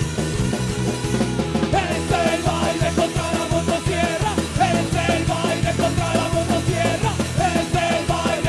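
Live punk rock band playing, with electric guitars; a lead singer's voice comes in about two seconds in and sings on over the band.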